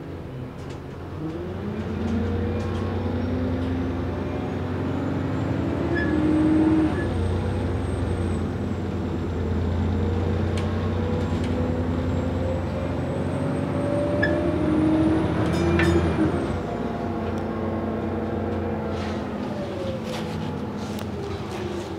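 Double-decker bus engine and drivetrain heard from the lower deck as the bus pulls away. The engine note climbs, drops at a gear change about seven seconds in, climbs again to a second change near the end, then eases off, with a faint high whine and a few light rattles over it.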